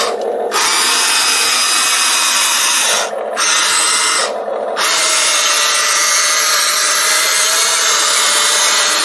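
Small electric gear motors of a Kolegend RC toy excavator whirring, starting and stopping as it is worked: it starts about half a second in, halts briefly about 3 seconds in and again about 4.5 seconds in, then runs steadily to the end.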